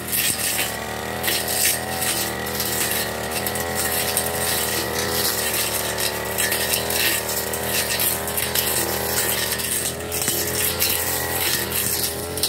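Backpack brush cutter's small petrol engine running at cutting speed while slashing grass and undergrowth, its pitch wavering a little under the load. Scattered sharp ticks sound through it.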